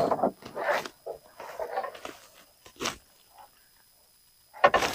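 A small largemouth bass thrashing in a landing net at a canoe's side: irregular splashing and rustling, with a sharp knock about three seconds in and a louder burst near the end.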